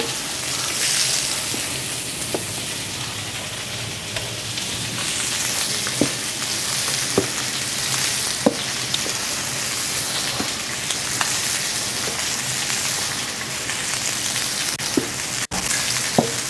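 Chicken pieces sizzling steadily as they fry in hot vegetable oil in a large paella pan, being browned. Occasional short sharp clicks and pops sound through the sizzle.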